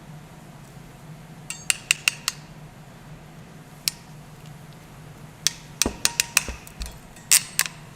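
Sharp metallic clicks of a KF CPTEC KFN-30J ratcheting crimper being worked: a quick run of about five clicks a second and a half in, a lone click near four seconds, and another cluster of clicks from about five and a half seconds in.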